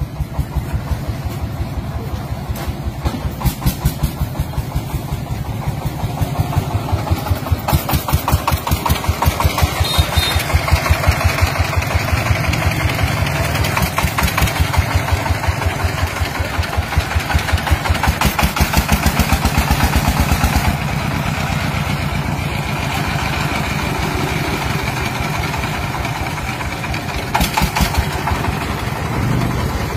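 Single-cylinder 'dompeng' diesel engine running with a fast, even chugging of firing strokes. It gets louder about ten seconds in and eases back a little about twenty seconds in.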